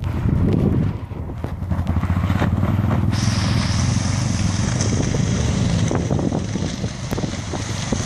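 Motorcycle engine running under throttle as the bike rides through a shallow river, with water spray hissing from about three seconds in.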